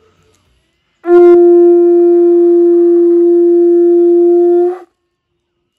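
An animal-horn trumpet blown by mouth: one long steady note starting about a second in and held for nearly four seconds, then stopping sharply.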